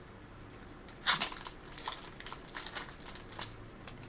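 Foil booster-pack wrapper of Pokémon trading cards being torn open and crinkled: a sharp crackle about a second in, then a run of smaller crinkles.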